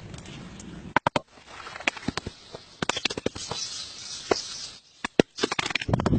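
Irregular sharp clicks and knocks over a faint hiss. A quick cluster comes about a second in, and another near the end.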